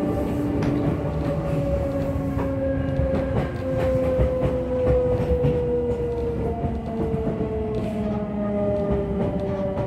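Inside an Odakyu 1000 series commuter train car while running: the traction motors and GTO-VVVF inverter give a steady tone that falls slowly in pitch as the train slows. Wheel and rail rumble lies under it, with occasional clacks at rail joints.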